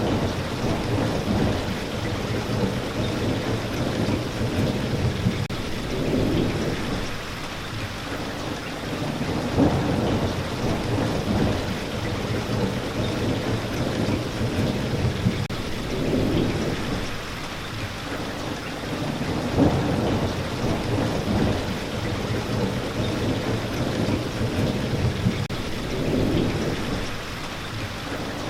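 Steady rain falling, with low rumbles of thunder that swell and fade every few seconds.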